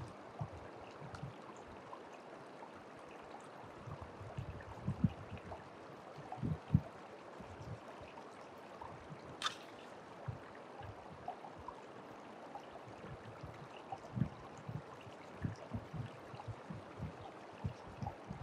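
A shallow creek running steadily over stones, with irregular soft knocks and scrapes of a plastic scoop digging wet gravel concentrate out of a plastic bucket, and one sharp click about halfway through.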